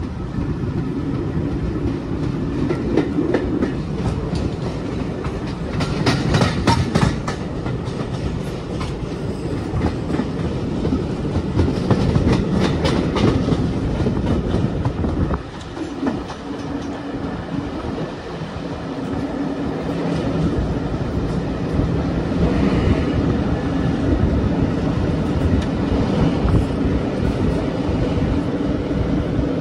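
A Thumper diesel-electric multiple unit on the move: a steady engine tone runs under the whole stretch. Twice, around six and twelve seconds in, clusters of sharp clicks sound as the wheels cross rail joints and pointwork.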